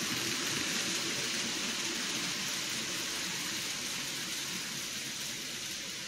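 N-gauge model trains running on the layout: a steady rolling hiss and rattle of wheels on track with a low rumble under it, easing off slightly after the first second.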